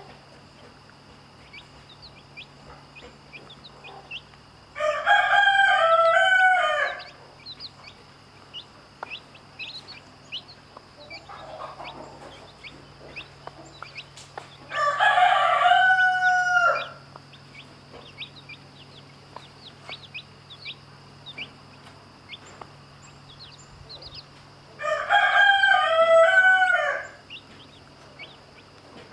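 Rooster crowing three times, about ten seconds apart, each crow about two seconds long. Faint short peeping of chicks is heard between the crows.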